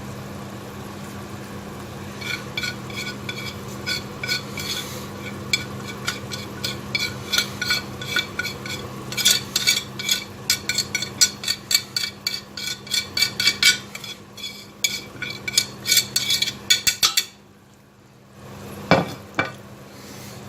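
Spoon stirring spices into a frying onion-tomato masala in a pan, clinking and scraping against the pan several times a second over a steady hum and sizzle. The stirring pauses briefly near the end, then there is one knock.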